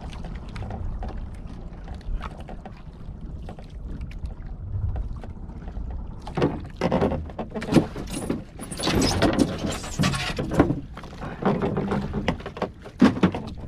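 Water slapping and splashing against the hull and outrigger floats of a small Philippine outrigger boat (bangka) over a steady low rumble. The splashing turns louder and more frequent about halfway through.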